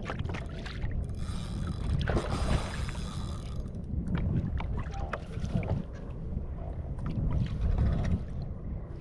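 Kayak on open water: water sloshing and splashing against the hull, with wind buffeting the microphone in a steady low rumble.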